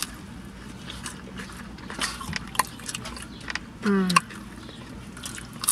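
Close-up eating sounds: chewing and mouth noises with a few short sharp clicks, and one brief voiced sound about four seconds in.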